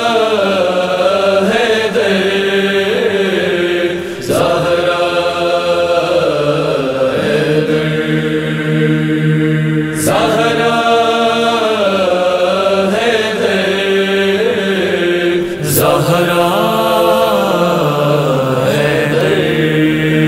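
Male chorus singing a slow, wordless chant-like introduction over a sustained low vocal drone, in long melismatic phrases that break and start again about every five to six seconds.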